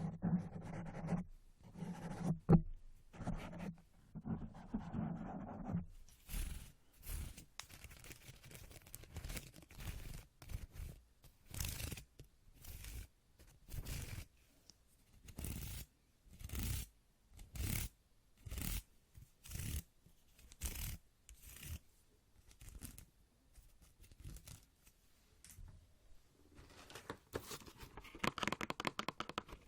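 Close-miked ASMR hand sounds: short, sharp swishes or taps about once a second, turning into a denser rubbing near the end.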